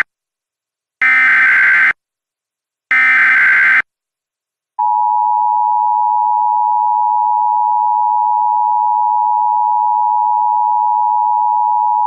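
Emergency Alert System tones: two short, buzzy SAME digital header bursts about a second apart, then, after a brief gap, the steady two-tone EAS attention signal starts and holds.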